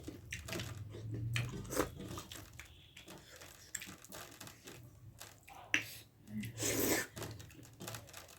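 A person chewing and eating dhido close to the microphone: a string of short, soft wet mouth clicks and smacks, with a louder noisy stretch about two-thirds of the way through.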